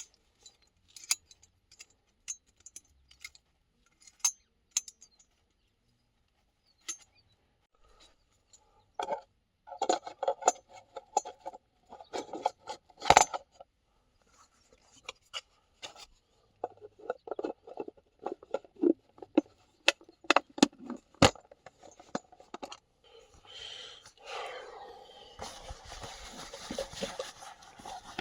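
Camp cookware and utensils being handled: scattered sharp clicks and clinks, then busier clattering and scraping with some metallic ringing. Near the end a steady hiss sets in.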